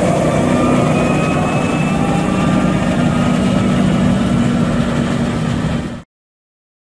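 Fendt tractor engine running steadily under load as it pulls a silage trailer across maize stubble, with a low hum and faint rising whines. The sound stops abruptly about six seconds in.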